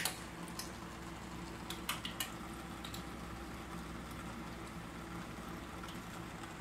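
Aquarium water bubbling and churning over a steady low hum from the tank's equipment, with several short sharp splashes and clicks near the start and about two seconds in as cichlids snap at cockroaches on the surface.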